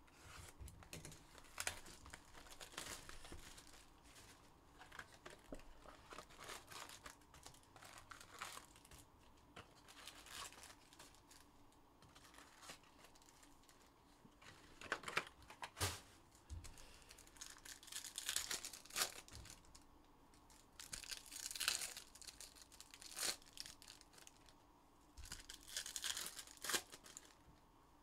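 Topps Chrome trading-card packs and their packaging being torn open and crinkled, in irregular bursts of tearing and crackling rustle that grow louder about halfway through.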